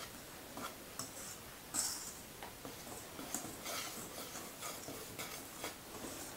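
Wire whisk stirring dry flour and cocoa powder in a stainless steel bowl, its wires tapping and scraping the metal in faint, irregular light clicks.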